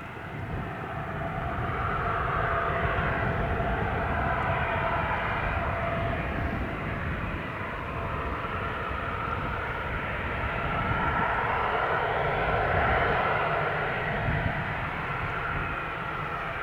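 Gulfstream G650 business jet's twin Rolls-Royce BR725 turbofan engines running, a continuous jet rush whose tone wavers and swells, loudest about three-quarters of the way through.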